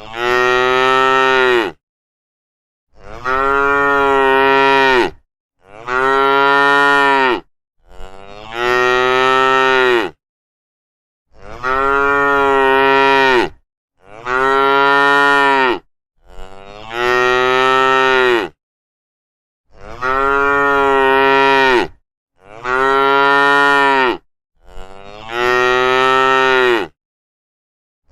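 Cows mooing: about ten drawn-out moos, each roughly two seconds long and falling in pitch at the end, one after another with dead silence between them.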